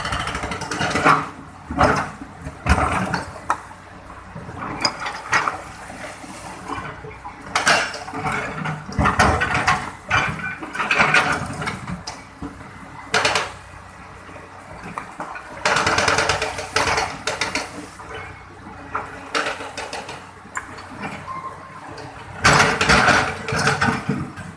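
Excavator at work: irregular clanking and scraping bursts of metal against hard material over a steady engine hum.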